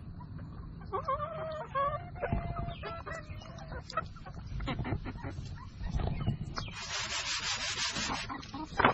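Young chickens clucking and calling in short, pitched cries, with scattered knocks and taps around them. About seven seconds in comes a hissing rustle lasting over a second.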